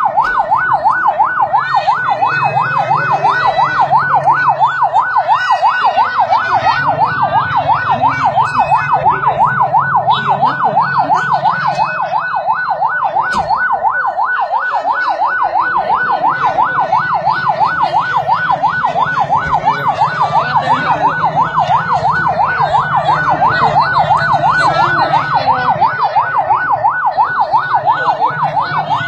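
Electronic yelp siren, its pitch sweeping rapidly up and down several times a second without a break.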